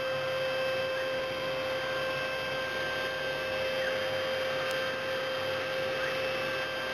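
CNC milling machine spindle running at a steady speed, giving a steady high-pitched whine over a constant noise haze.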